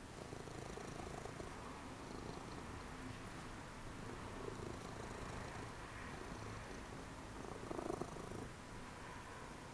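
Domestic cat purring steadily, close to the microphone, with a brief louder rustle about eight seconds in.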